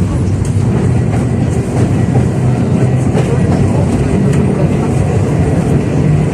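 71-605A (KTM-5A) tram running along the track, heard from inside the car: a steady rumble of wheels on rails and traction-motor hum, with faint light clicks.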